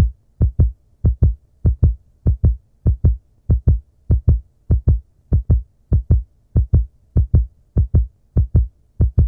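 Heartbeat sound effect: a steady double thump, lub-dub, repeating about every 0.6 seconds.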